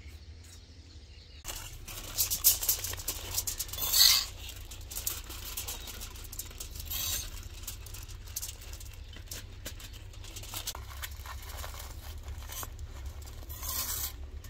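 Aluminium foil crinkling and rustling as fried rice is scooped onto it with metal tongs and folded into parcels, with clicks and scrapes of the tongs. It starts about a second and a half in, with the loudest crackles at about two and four seconds.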